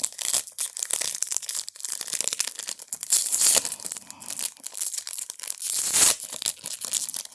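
A baseball card pack's wrapper being torn open and crinkled by hand: dense crackling throughout, with louder rips about three seconds in and again about six seconds in.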